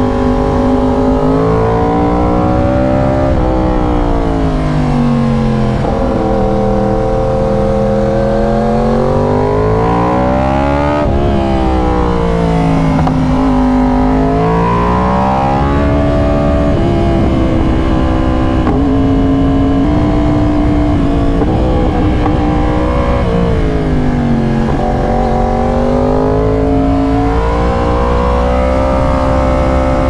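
Yamaha R1's crossplane inline-four through an aftermarket SC-Project exhaust, heard from the rider's position. The engine note climbs under acceleration and drops off again several times, with a run of short stepped pitch changes around the middle.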